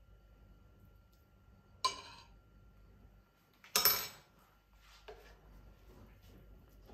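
Kitchen utensils clinking against a cast-iron skillet and mixing bowl as brownie batter is spooned into the pan: two sharp ringing clinks about two seconds apart, the second louder, then a faint tap.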